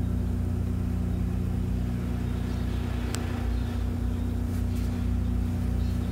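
Steady low electrical hum of substation equipment, most likely the 7.5 MVA power transformer, held on a few fixed low tones. A single sharp click comes about three seconds in.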